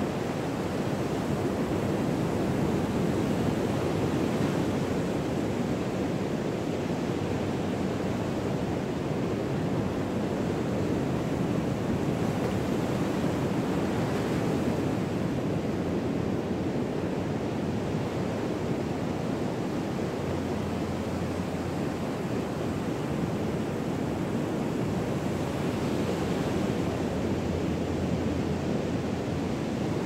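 Pacific Ocean surf breaking on the beach: a steady rush of waves that swells gently a few times.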